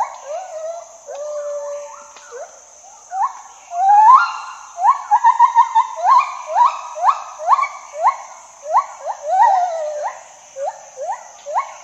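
Gibbon song: a rapid series of rising whoops, about two to three a second, broken early by a held note, with a long rising note about four seconds in followed by a quick run of short notes before the whoops resume.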